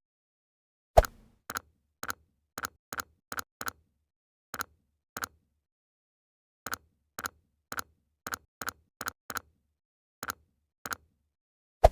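A string of short, sharp clicks at uneven intervals, separated by dead silence. Two heavier clicks with a low thump come about a second in and at the very end.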